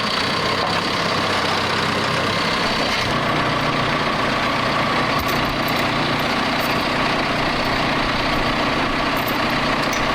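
A heavy vehicle engine runs steadily in a muddy work site, and its low rumble gets fuller about three seconds in.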